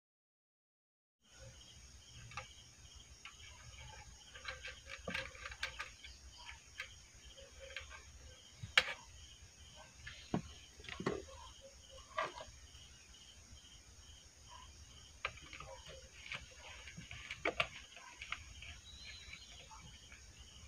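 Quiet handling sounds: scattered small clicks and taps of fingers working copper wire onto the terminal of a homemade coil, after about a second of dead silence. A faint, evenly repeating high chirping runs under it.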